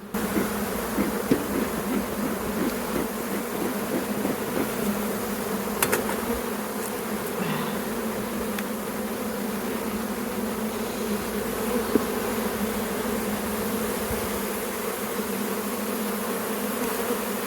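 A mass of honeybees buzzing around an opened hive: a steady, dense hum. A few short knocks sound over it, about 1, 6 and 12 seconds in.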